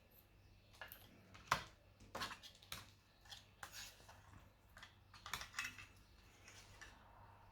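Irregular light clicks and taps of hands working on a laptop, the sharpest about one and a half seconds in.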